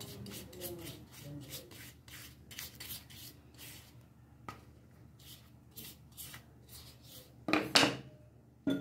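Sandpaper rubbed by hand over a plywood cutout in quick back-and-forth strokes, about two to three a second, then slower and sparser. Two louder, harsher scrapes come near the end.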